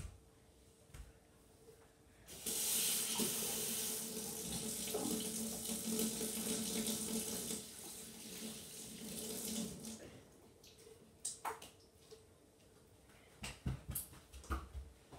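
Water running from a tap into a sink, starting about two seconds in and stopping about ten seconds in, as slime-sticky hands are washed. A few short clicks and knocks follow near the end.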